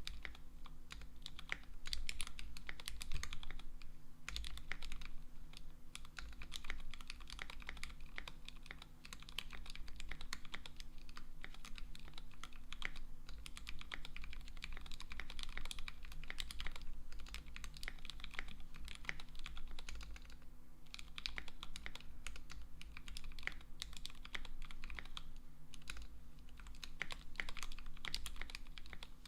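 Steady typing on a KBDFans D65 mechanical keyboard with lubed Gateron Black Ink V2 linear switches on a brass plate, Durock V2 stabilizers and Infinikey keycaps: a fast, continuous run of keystrokes.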